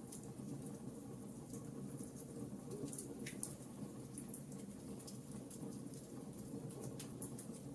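Campfire burning with a steady low rumble and frequent small, sharp crackles and pops at irregular times.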